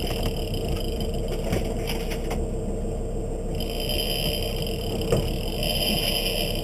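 Steady low rumble and hum on a boat, with a few light clicks and scrapes from the heavy rod and reel as a big amberjack is fought.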